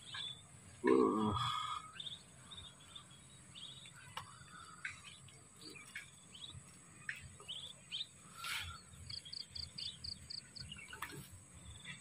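Birds chirping on and off over a steady high insect buzz, with a quick trill of about seven rapid pips near the end. A brief pitched, voice-like call about a second in is the loudest sound.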